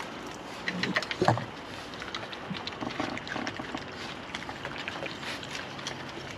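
Wild raccoons feeding on scattered dry cereal: a steady patter of small clicks, taps and crunches, with a couple of short voice-like sounds about a second in.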